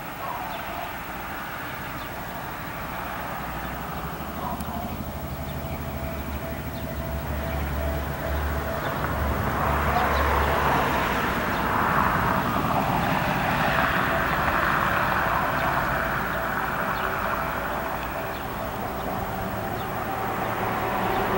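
Tobu 350 series electric train approaching along the track. Its running noise grows louder about halfway through, a low hum under a rising rush of wheel and rail noise.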